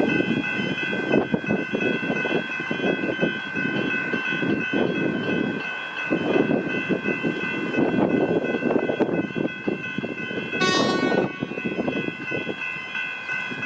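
Level-crossing electronic bells ringing steadily, which sound until the boom gates rise, while a suburban electric train passes over the crossing with a rhythmic clatter of wheels on the rails. About two-thirds of the way through there is a brief high tone.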